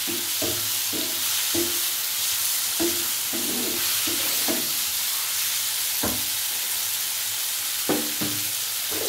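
Diced onions and tomatoes sizzling in hot oil in a nonstick frying pan, with a wooden spatula knocking and scraping against the pan as they are stirred. The stirring stops about six seconds in, leaving the steady sizzle, with one more knock near the end.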